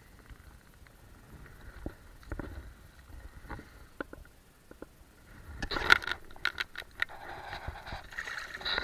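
A trout splashing in the shallows at the bank as it is unhooked and released, with scattered small knocks and rustles of handling. The loudest splash comes about six seconds in, followed by a couple of seconds of sloshing water.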